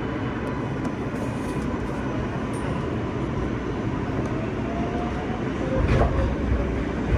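New York City subway L train car in motion, heard from inside: a steady rumble of wheels on the rails with faint thin whines, and a sharp jolt about six seconds in.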